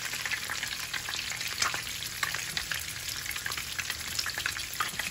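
Meatballs shallow-frying in hot canola oil in a pan: a steady sizzle with frequent crackles and pops of spitting oil.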